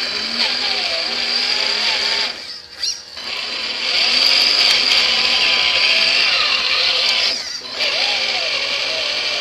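Electric drive motor and gearbox of a radio-controlled scale crawler whining steadily as it drives, heard close up from a camera mounted on the model. The whine stops for a moment about two and a half seconds in and again briefly later on, then picks up again.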